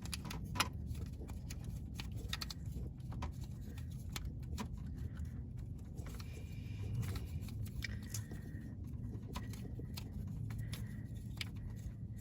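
Plastic wiring-harness connectors being handled and pushed onto transmission sensors: scattered light clicks and rattles over a steady low background rumble.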